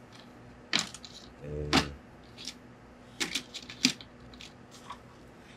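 Scattered sharp clicks and light knocks as a wooden yardstick is shifted and set against the fabric on a cutting table, with a short low hum of voice a little under two seconds in.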